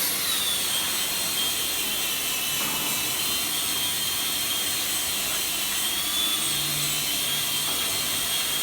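4-axis CNC aluminium processing centre running: a high-pitched spindle whine that drops in pitch in the first second, then holds steady over a constant hiss.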